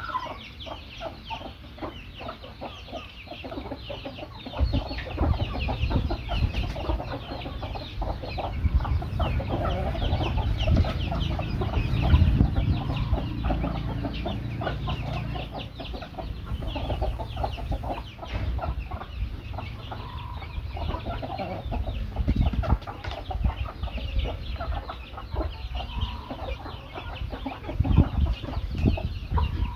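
Roosters and hens clucking steadily while foraging, with many short calls overlapping. A low rumble comes and goes beneath them, loudest about twelve seconds in and again near the end.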